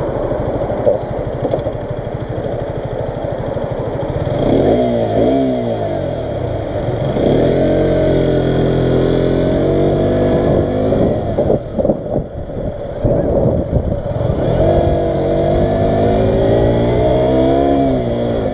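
125cc motorcycle engine pulling away from a standstill and accelerating, the pitch climbing and dropping repeatedly as it revs through the gears.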